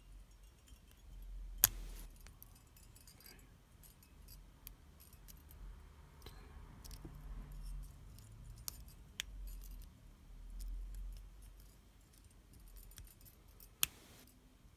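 Faint metallic clicks and scrapes of a lock pick working the pins of a five-pin laminated padlock under tension, with a sharp click about two seconds in and another near the end.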